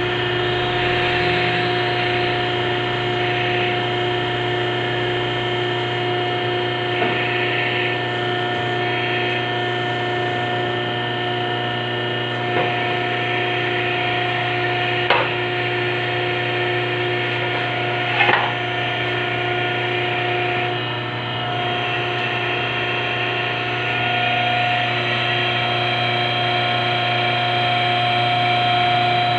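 Hydraulic power unit's electric motor and pump running steadily with a constant hum. A few short clicks and knocks come through in the middle.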